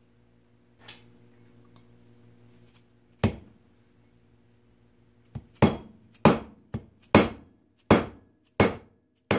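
Shot-filled dead-blow hammer striking a 15 mm socket used as a driving mandrel, driving a sealed end plug into a GMC 6-71 blower rotor: one blow about three seconds in, then a run of about eight blows, roughly one and a half a second.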